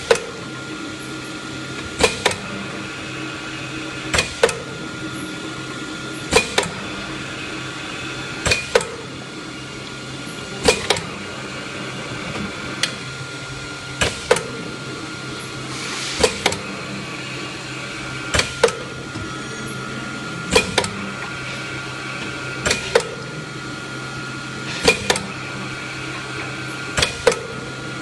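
Automatic bottle-filling machine running with a steady hum, with a sharp double clack about every two seconds as it cycles through each fill.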